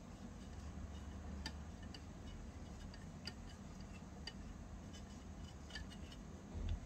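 Small spoon stirring pudding in a miniature steel pot, its edge clicking and scraping against the pot's side in irregular light ticks. A soft low thump near the end.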